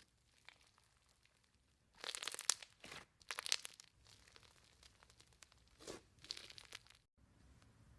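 Slime being squeezed and pulled by hand, giving crackling, crinkly bursts: two louder ones about two and three seconds in, then a softer one around six seconds, followed by a brief dropout.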